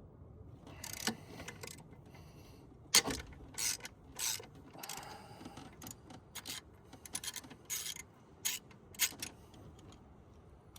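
Hand socket ratchet clicking and rasping in short, uneven strokes as a 12 mm nut holding the throttle body is backed off.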